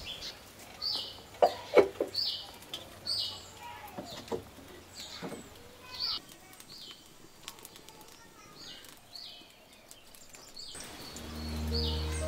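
A bird calling over and over in short, high chirps about once a second, with two sharp knocks about a second and a half in. Music comes in near the end.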